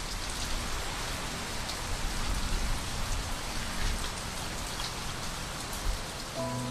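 Steady rain falling, a constant hiss with scattered drop ticks. Soft sustained music tones come in near the end.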